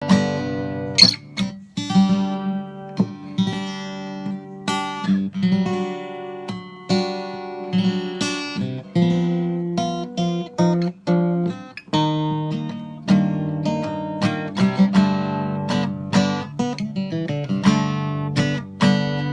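Acoustic guitar playing a tune, plucked notes one after another over ringing bass notes.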